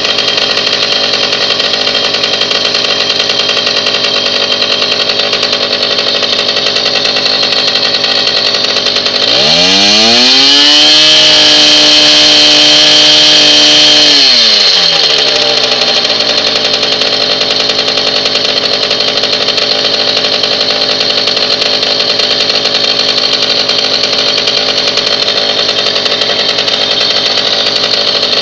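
Stella moped's small single-cylinder engine running fast on the stand. About nine seconds in it revs up to a higher pitch, holds there for about four seconds at around 9,500 rpm, then drops back to its earlier speed.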